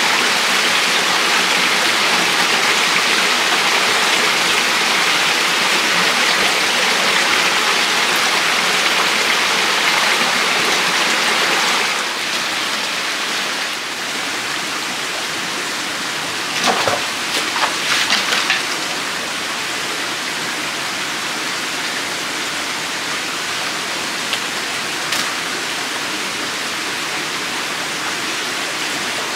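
Forest stream running over rocks: a steady rush of water that drops to a softer, steady rush after about twelve seconds. A few brief sharp sounds come about halfway through.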